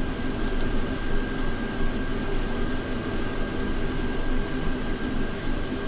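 Steady background hum and hiss with a faint, thin, steady high tone running through it, like a fan or air conditioner picked up by the microphone.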